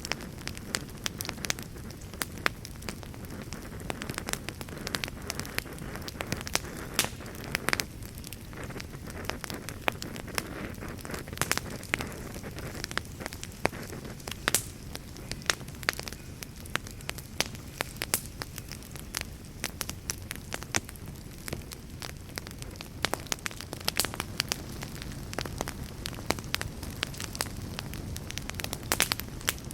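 Wood fire burning in a fireplace: a steady low rumble of flames with frequent sharp, irregular crackles and pops from the burning wood.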